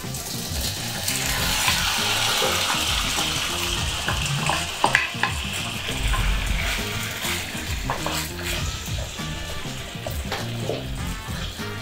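Sauce-coated pieces sizzling in a hot nonstick frying pan as they are stirred, with a few clicks of the utensil against the pan about halfway through. The sizzle is loudest in the first few seconds and eases off after.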